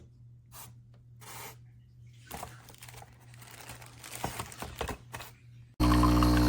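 Light rustling and clicking of things being handled over a low steady hum. Near the end, an espresso machine's pump starts suddenly with a loud, steady buzz.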